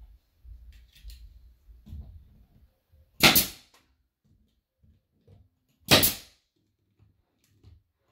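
Pneumatic nail gun on an air hose firing three times, about two and a half seconds apart, the last right at the end. Each shot is a sharp crack that fades quickly, with faint handling and shuffling noises between shots.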